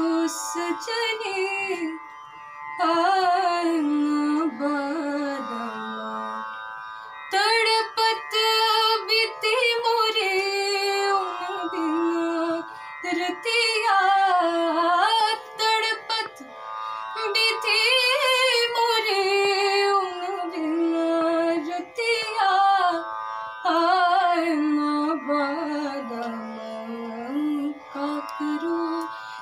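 Female voice singing the slow opening phrases of a thumri in Hindustani classical style, long held notes with sliding ornaments between pitches, over a steady drone. There are short pauses between phrases.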